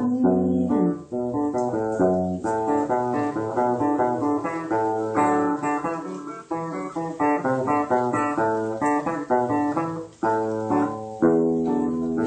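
Guitar playing an instrumental interlude: a melody of separately plucked notes, several per second, with a steady low note underneath.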